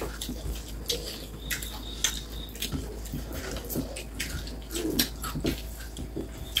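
Close-up eating sounds from several people eating rice with their fingers: irregular wet lip smacks, chewing clicks and squelches, with fingers working the rice on the plates.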